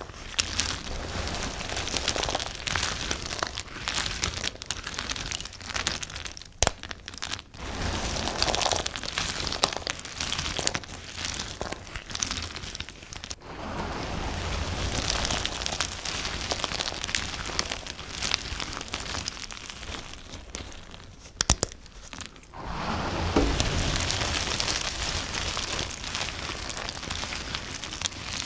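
A knife cutting through soap, giving a crisp, crackly crunching in several long stretches with short pauses between them.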